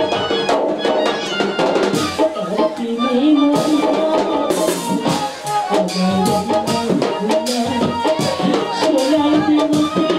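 Live jatra band music for a Bengali bicched song: a stepping melody over drums and rattling percussion, with a woman singing into a microphone near the end.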